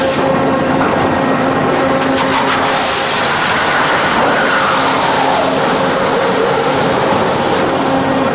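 Large industrial lathe running and cutting a big rotating cylinder: a steady machine hum under continuous cutting noise, which gets brighter for a couple of seconds about three seconds in.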